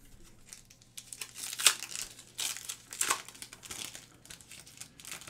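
Foil trading-card pack wrapper being torn open and crinkled by hand: a run of sharp, papery crackles that starts about a second in and is loudest in the middle.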